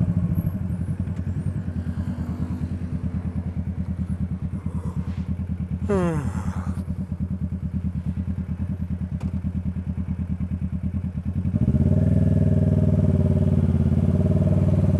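Motorcycle engine idling with a steady pulsing beat, then running louder and fuller from about twelve seconds in. A short tone sweeps steeply down in pitch about six seconds in.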